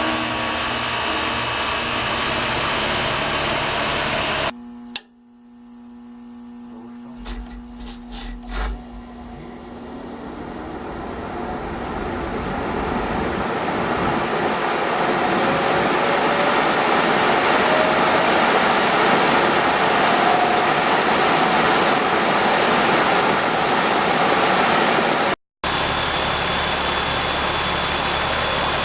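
Rheem RGPR furnace's ECM blower motor starting and ramping up slowly over about ten seconds into a steady rush of air. A few clicks and a low hum come just before it. Before that, a steady running noise stops abruptly a few seconds in, and near the end it gives way to a different steady machine sound with a thin high whine.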